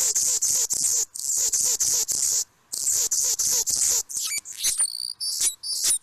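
Recorded song of a male Anna's hummingbird played back: phrases of high, scratchy, buzzing notes with short breaks between them, then thinner squeaky notes in the second half.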